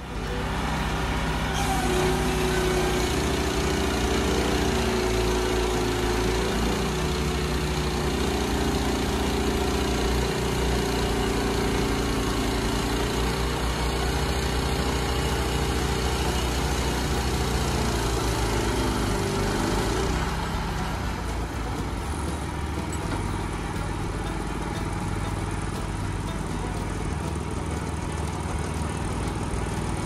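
Wood-Mizer LX25 portable band sawmill running, its engine and band blade working steadily through a log. About two-thirds through, the sound changes and gets a little quieter, as the cut ends and the engine keeps running.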